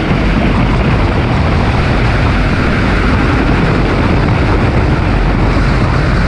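Car engine and wind noise at track speed: a loud, steady rush with little clear engine pitch, as heavy wind buffets the on-board microphone.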